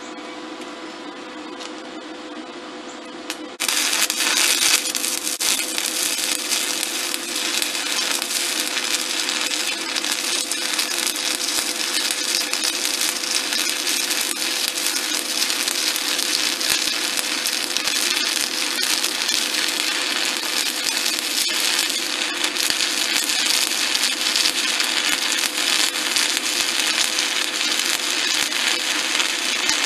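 Stick welding arc from a SanRex SanStick 160S inverter burning a 1/8-inch E7018 electrode at about 90 amps on 110 volts: after a low steady hum, the arc strikes about three and a half seconds in and crackles steadily through the rest.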